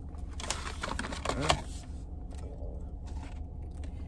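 Eating noises inside a car: crackling rustles and chewing as French fries are taken from a paper carton and eaten, loudest between about half a second and a second and a half in, with a short hummed vocal sound around then, over a steady low hum in the cabin.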